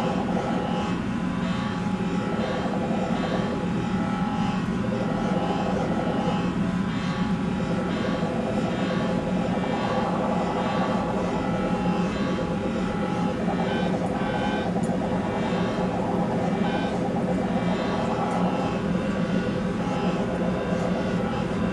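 Computer-generated electronic music: a dense, steady drone of many layered held tones with faint shifting higher notes, produced by software that turns the dancers' movements, tracked by two cameras, into sound.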